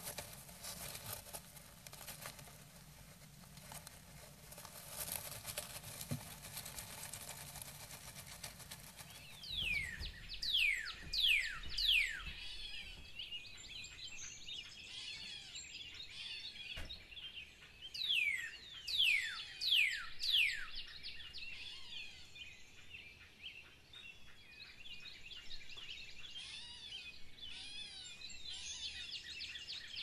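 Great tit shuffling on its nest inside a nest box: soft scratching and rustling in the nesting material. After about ten seconds this gives way to birdsong with steady twittering and two runs of about four loud falling whistles.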